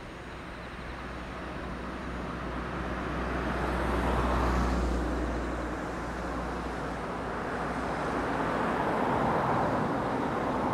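Jet engine noise of a twin-engined Boeing 767-300 airliner on final approach and landing. A steady rushing noise with a deep rumble swells to a peak about four seconds in, eases off, then swells again near the end as the aircraft reaches the runway.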